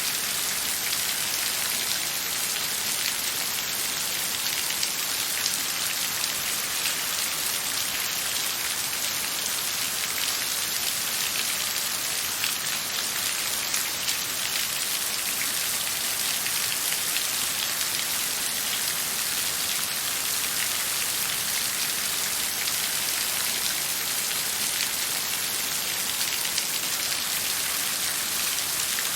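Steady rain falling: an even hiss of drops, strongest in the highs, flecked with many small drop ticks.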